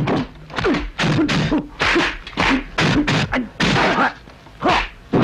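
Kung fu film fight sound effects: about a dozen dubbed punch and kick whacks in quick succession, mixed with the fighters' short grunts and shouts.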